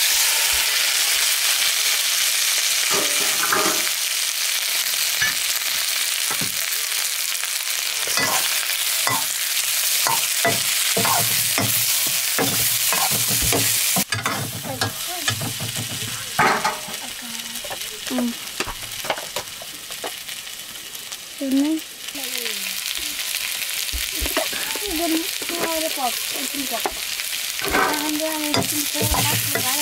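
Food frying in hot oil in a pan, sizzling loudly and steadily, with short knocks and scrapes of a utensil stirring it.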